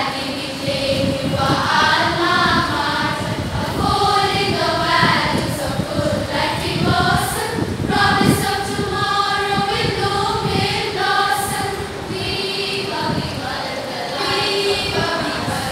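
Girls' school choir singing an anthem in unison, with long held notes in the middle of the passage.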